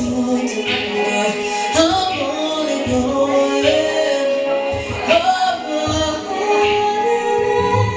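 A live band playing a song, with a singer holding long notes over drums and bass.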